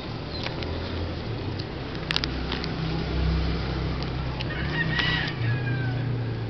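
Handling noise from a ring binder's plastic card sleeves being turned and rubbed, with scattered sharp clicks and a low rumble of hands moving against the microphone. A short high chirp-like squeak comes about five seconds in.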